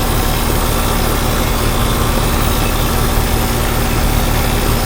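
1995 Weather King air-conditioner outdoor unit running, its Copeland reciprocating compressor giving a steady low hum under the even rush of air from the condenser fan.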